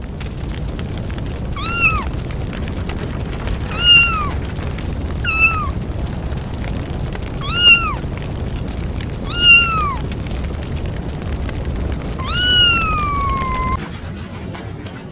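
A cat meowing six times, short calls a second or two apart, the last one longer and falling in pitch. Under them runs a steady low noise that drops away shortly before the end.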